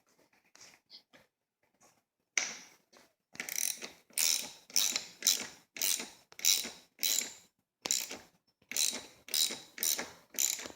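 A ratchet wrench clicking through repeated strokes, about two a second with brief pauses, as the 10 mm bolt holding a front brake lever is worked loose. A few faint small handling sounds come before it.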